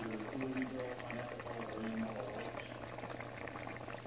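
Thick brown stew chicken gravy bubbling as it simmers in the pot, with many small bubbles popping in quick, irregular succession. A steady low hum runs underneath.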